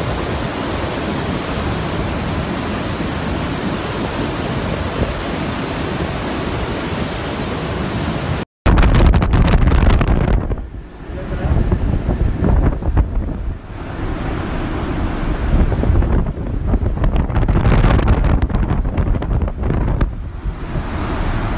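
Storm wind and surf during a tropical storm: a steady rush of waves and wind at first. After a brief dropout about eight seconds in, heavy gusts buffet the microphone, surging and easing several times.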